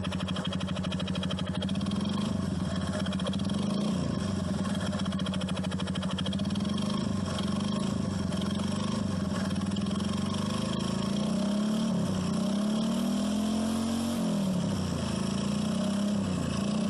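Honda Biz motorcycle's small single-cylinder four-stroke engine running steadily with a strange mechanical noise in it, which the owner suspects comes from a worn connecting rod or the clutch basket and says should not be the valves.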